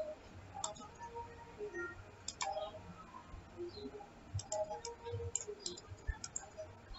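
Computer mouse clicking: scattered single and paired clicks about a second apart, a few in quick succession around the middle.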